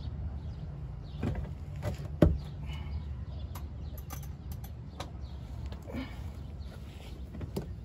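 Scattered clinks and knocks of a hand tool on metal under a pickup truck as the oil drain plug is worked at. One sharp knock about two seconds in is the loudest, and a steady low rumble runs beneath.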